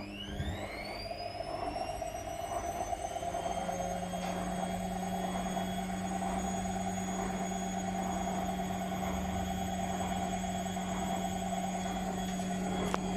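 Whirlpool FL 5065 washing machine spinning up with an unbalanced load: the motor's whine rises steeply at the start and levels off at a steady high pitch about two seconds in, then runs on at 600 rpm over a steady low hum.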